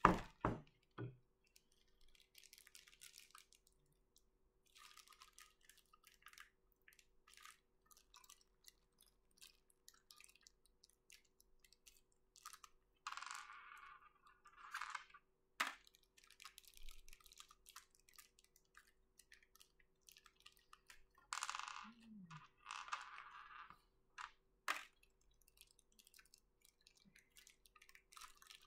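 Hard plastic knocking on a desk a few times just after the start, then thin plastic packaging bags crinkling and rustling in two longer spells as small model parts are unwrapped, with scattered light clicks of small plastic pieces. A faint steady hum runs underneath.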